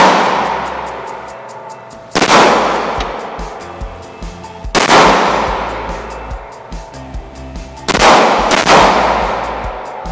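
Five pistol shots fired at an indoor range, at uneven intervals with the last two close together, each ringing out in the room's echo. Background music plays underneath.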